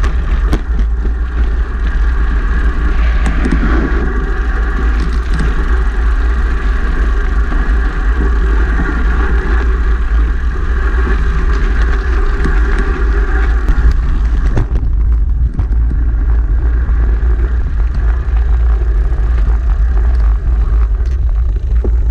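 Wind buffeting the microphone of a mountain biker's action camera, with the rumble and rattle of the bike riding over a dirt trail. A steady higher hum runs underneath until about fourteen seconds in, then stops.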